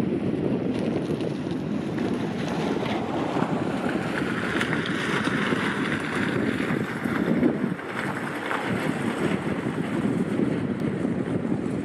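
Wind buffeting the microphone, a steady, uneven rumble, with a higher rushing hiss that swells for a few seconds in the middle.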